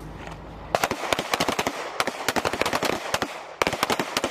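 Two pistols firing rapidly at targets, starting about a second in, with the shots overlapping into a fast, uneven string. There is a brief pause about three seconds in before firing resumes.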